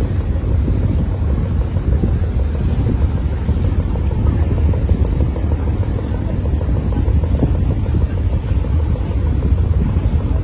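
Steady low rumble of wind buffeting the microphone aboard a moving boat, with the boat's engine running underneath. No gull calls stand out.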